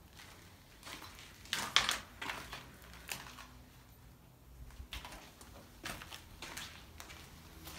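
Footsteps on a floor littered with broken plaster and debris: a string of irregular steps, the loudest about two seconds in.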